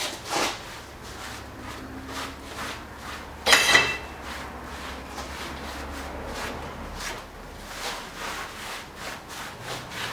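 Brush sweeping metal chips off the milling machine's surface in quick repeated strokes, with one louder, shriller scrape about three and a half seconds in.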